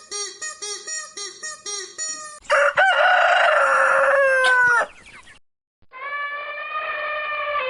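Chickens: a run of short clucks, about four a second, then two rooster crows. The first crow is loud and rises in pitch at its end; the second is long and steady.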